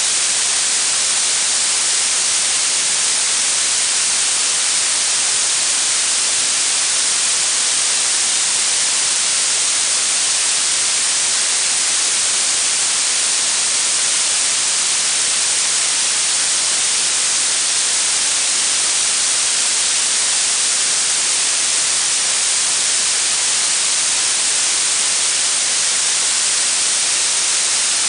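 Blue noise: a steady, even hiss that is strongest in the high treble and thin in the bass.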